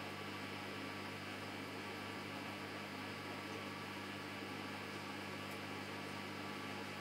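Samsung washing machine running with a steady low hum and hiss, unchanging throughout.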